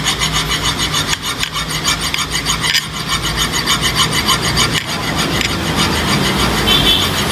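Hand file rasping in repeated strokes across a scooter's centrifugal clutch shoe lining, lowering the high spots so the lining grips the clutch bell evenly.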